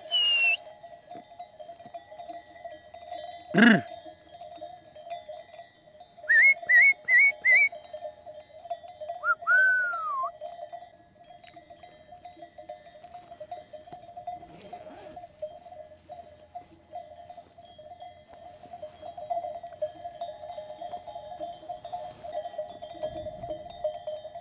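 Bells on a grazing sheep flock ringing steadily, with a sheep bleating once briefly about four seconds in. A person whistles four short rising whistles about six seconds in, then one longer whistle that rises and falls.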